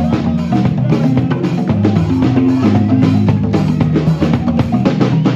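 Marimba band playing, with many quick struck notes over deep bass-marimba notes and a steady beat.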